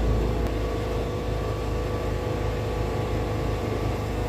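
Wood-Mizer portable band sawmill's engine running steadily, a constant low drone with no change in pitch.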